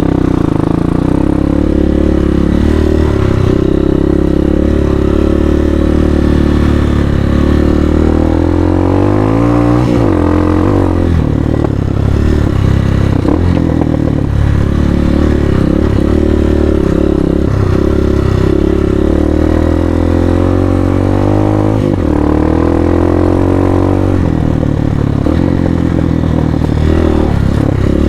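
Hawk 250 dual-sport motorcycle's single-cylinder engine running under load while riding off-road, its pitch rising and falling with the throttle, with one clear climb and sharp drop about ten seconds in.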